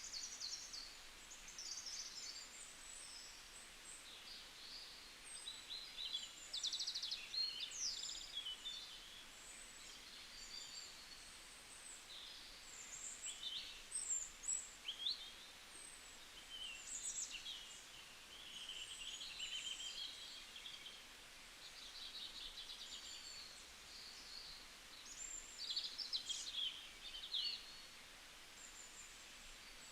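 Several birds chirping and trilling in short, high calls throughout, over a faint steady background hiss.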